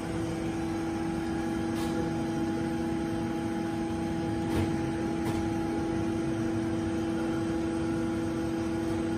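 Kunzmann BA 600 CNC machining centre running with a steady pitched hum over a mechanical noise. The hum comes on right at the start, and a few faint clicks sound partway through.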